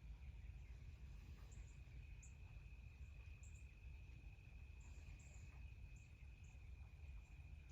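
Near silence: quiet woodland ambience with a faint steady high tone and scattered short, very high chirps.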